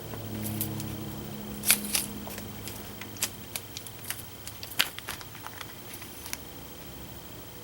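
About a dozen sharp, irregular clicks of small hard objects being handled, the loudest about two seconds and five seconds in, over a faint steady hum and a thin high whine.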